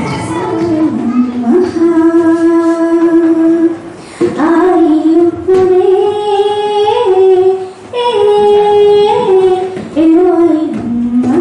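A woman singing solo into a handheld microphone: slow phrases of long held notes, with short breaths between phrases about four and eight seconds in.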